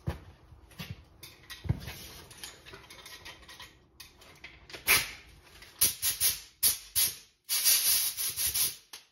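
Light rustling and clicks of handling, then from about five seconds in a series of short hissing blasts and one longer blast near the end: a compressed-air blow gun clearing aluminium chips off a thread tap.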